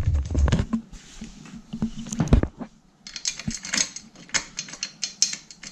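Light metallic clicking and scraping of screws being threaded by hand into the metal seat-mounting plate of an office chair's tilt mechanism. There is a sharper click about two and a half seconds in, then quicker, lighter clicks through the second half.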